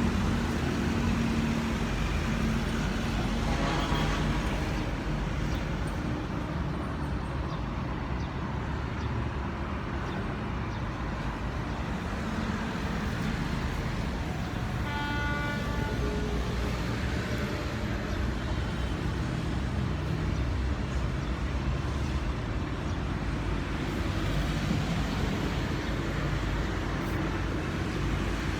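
Steady road traffic noise with a low rumble, and a short horn-like toot about halfway through.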